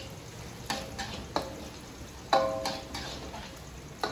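Metal spatula scraping and clanking against a wok while chopped chilies, shallots and garlic fry in a little oil. About seven sharp clanks with brief ringing, the loudest about two and a half seconds in, over a faint sizzle.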